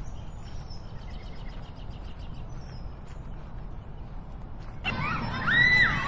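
Street dog whining and yelping in high, arching cries that glide up and down, starting abruptly about five seconds in; before that only faint short high chirps.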